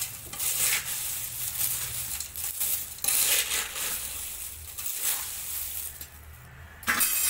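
Crisp fried maize-flake chivda rustling and crunching as a metal ladle stirs it through spice masala in a steel bowl, with light metallic clinks of the ladle on the bowl. The stirring eases off about six seconds in.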